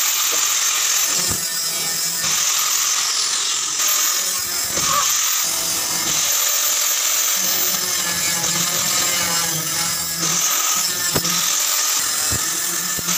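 Handheld angle grinder cutting metal, throwing sparks: a loud, steady high-pitched whine with grinding noise, shifting slightly as the disc bites.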